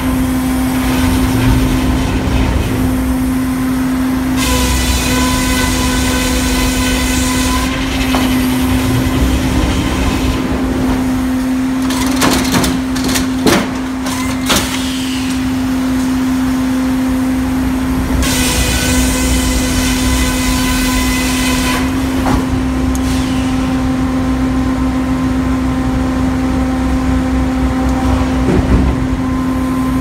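Circular head saw of a 1985 Hurdle sawmill sawing beech, over the mill's steady hum. Twice, about five seconds in and again about nineteen seconds in, the sound rises for some three seconds into a higher whine with a hiss as the blade runs through the wood. A few sharp knocks come about halfway through.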